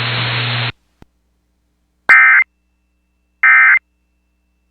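NOAA Weather Radio hiss with a low hum cuts off under a second in. Then come two short bursts of EAS/SAME digital data tones, about a second apart: the end-of-message (NNNN) code that closes the alert broadcast.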